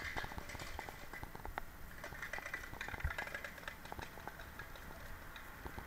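Magnet-fishing rope being hauled in hand over hand over a stone canal edge, dragging a heavy find up from the water: a run of irregular clicks and scrapes, with one louder knock about three seconds in.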